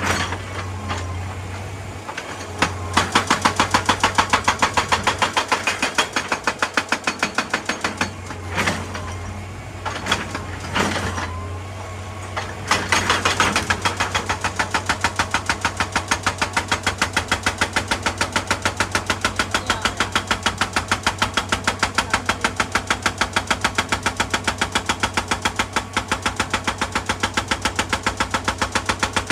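Excavator-mounted hydraulic rock breaker hammering rock in rapid, evenly spaced blows. It starts about three seconds in, pauses for a few seconds, then hammers steadily from about twelve seconds on. The excavator's diesel engine runs underneath and is heard plainly in the pauses.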